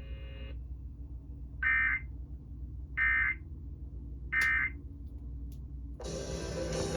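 Three short bursts of Emergency Alert System (SAME) digital data tones, with about a second between them: the end-of-message code that closes a broadcast alert. Near the end a hiss of static comes in.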